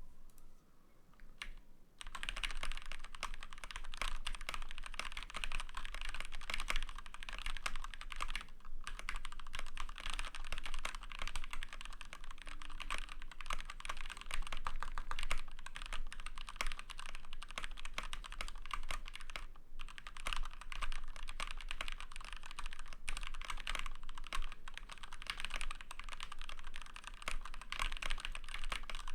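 Fast, continuous typing on a GK61 mechanical keyboard with lubed Gateron Black linear switches, a steel plate, a plastic case and PBT doubleshot keycaps. The keystrokes start about two seconds in and pause briefly twice.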